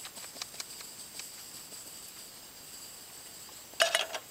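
Faint scattered clicks over a steady low hiss, then near the end a short, loud metallic clatter as a small frying pan is set back down on a white-gas backpacking stove.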